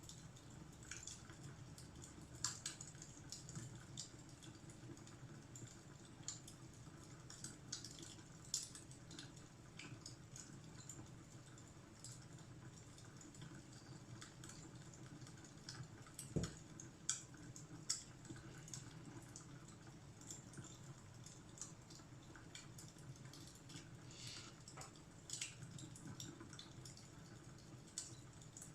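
Wood fire crackling: irregular small pops and snaps, a few sharper ones, over a steady low rumble.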